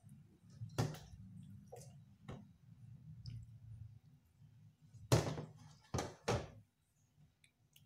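Dull knocks of a serving utensil against a bowl while stir-fried beef and broccoli is tipped in: one knock about a second in, then three close together after about five seconds, over a low hum.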